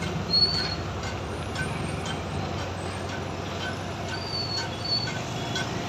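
Engines of heavy cranes running steadily while hoisting a concrete bridge girder, the machines labouring under the load. A few faint, short high chirps sound over the rumble.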